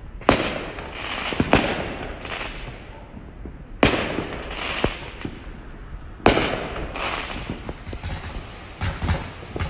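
Aerial fireworks going off: a string of sharp bangs, the loudest coming about every two seconds, each dying away in a second or so of crackle, with smaller pops near the end.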